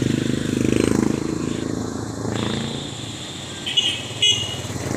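A motor vehicle passing on the road, its engine loudest at the start and fading away over the first two seconds. Two short high-pitched beeps near the end.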